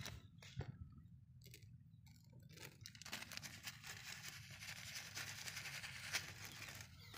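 Clear plastic bag crinkling in a hand: a few scattered taps at first, then a dense crackling rustle from about three seconds in that stops just before the end.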